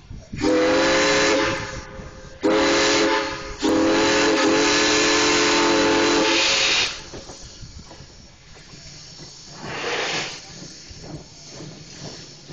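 The steam whistle of a 1920 ALCO 2-8-0 steam locomotive blows three blasts, each several notes sounding together, the last about three seconds long. A short burst of steam hiss follows about ten seconds in.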